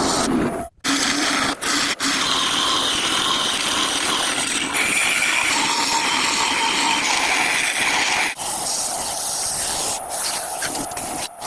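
Power tool running on wood, a steady hissing whir with a faint whine whose pitch shifts. It breaks off abruptly and changes character a few times: about a second in, near two seconds in, and around eight seconds in.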